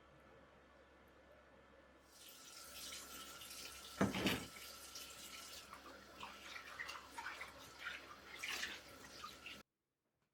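Kitchen tap running into a sink, starting about two seconds in, with a loud knock about four seconds in and lighter clinks after; the sound cuts off abruptly near the end.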